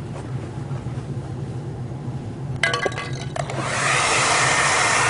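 A few clicks and rattles, then a hand-held hair dryer switched on about three and a half seconds in, blowing with a steady rushing hiss as it heats a dented plastic car bumper.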